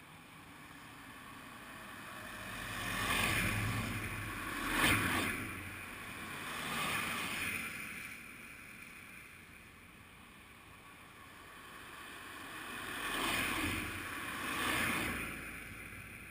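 Motor vehicles passing by: the sound swells and fades, loudest briefly just under five seconds in, with another pair of pass-bys near the end.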